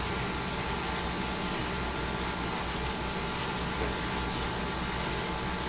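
Steady background hum and hiss, like a running fan or appliance, with a faint constant high-pitched whine; no distinct event stands out.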